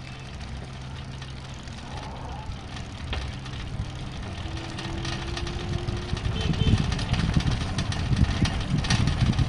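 Electric bike riding along a street, heard from its rear rack: a steady low hum, then a low rumble of wind on the microphone that grows louder over the second half, with scattered light clicks and rattles.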